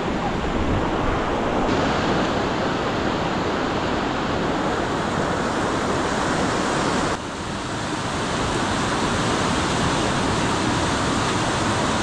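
Rushing mountain river, fast white water pouring over boulders in a steady roar. The sound shifts abruptly about two seconds in and again about seven seconds in, dipping briefly before building back.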